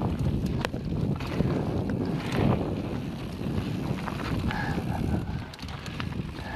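Mountain bike riding a dirt and gravel singletrack: wind rushing over the camera microphone and the tyres rolling on dirt, with scattered clicks and rattles from the bike over rough ground.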